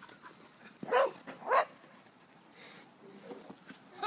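A corgi barks twice, about a second in, the two barks roughly half a second apart.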